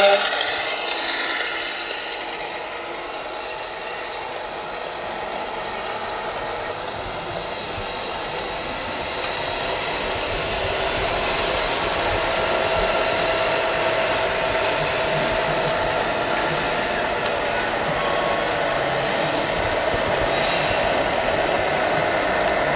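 Steady whirring of small electric motors, growing louder about ten seconds in.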